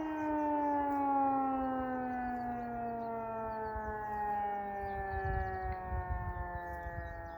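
E57 electro-mechanical siren winding down at the end of a tone of its fire-alarm test signal: a single wailing tone falling slowly in pitch and fading as the rotor spins down.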